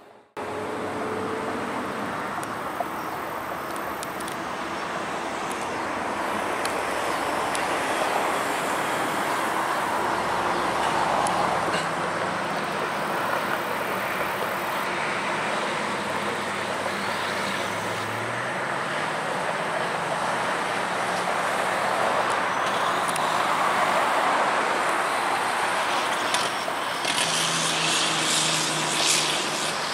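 Steady road traffic noise, a continuous hiss of passing vehicles, with one vehicle's engine rising in pitch about two-thirds of the way through.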